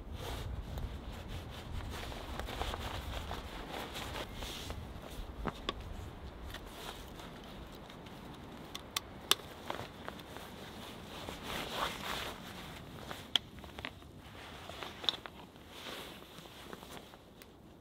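Handling noise of outdoor gear: clothing and leather rustling with a few scattered sharp clicks as a leather mask is worked off a hatchet head and a large machete blade is drawn from its belt sheath.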